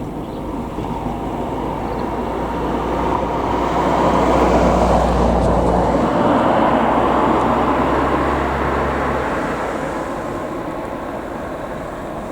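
A vehicle passing by: a broad rushing noise that builds to a peak near the middle and fades away, with a low steady hum underneath that cuts off about nine seconds in.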